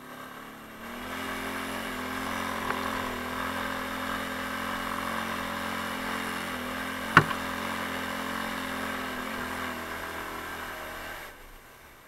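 Taotao 150cc ATV's single-cylinder four-stroke engine running at a steady pace while riding a dirt trail, with one sharp knock about seven seconds in. The engine note drops away about a second before the end.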